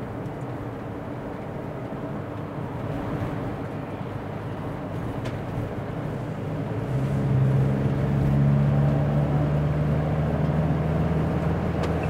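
Motorhome on the motorway, heard from inside the cab: steady engine and road noise. About seven seconds in it gets louder as a steady low drone joins in.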